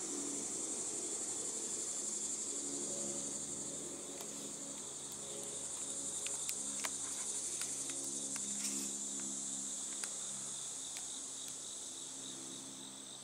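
Insect chorus singing steadily on a high note. A faint low hum made of several steady tones comes in about three seconds in.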